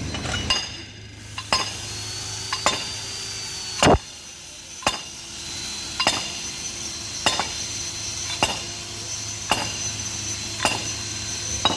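Hammer striking metal in repeated sharp taps, each ringing briefly. They come irregularly at first, with one heavier blow about four seconds in, then settle into a steady rhythm of about one a second.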